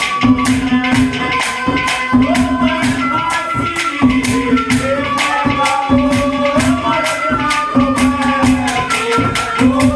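Instrumental interlude of Haryanvi ragni folk music: a held melody line moving in steps over a low pulsing note, with jingling percussion strokes about three or four times a second.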